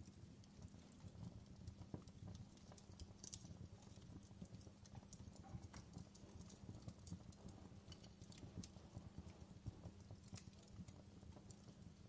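Wood fire crackling: irregular small pops and snaps, some sharper than others, over a faint low rumble of the burning.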